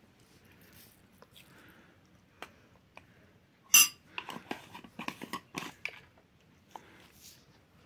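Metal spoons clinking against bowls: a sharp ringing clink a little under four seconds in, then about two seconds of lighter clatters and clicks.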